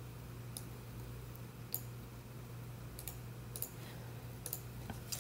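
About six faint, short clicks spaced roughly a second apart, over a low steady hum.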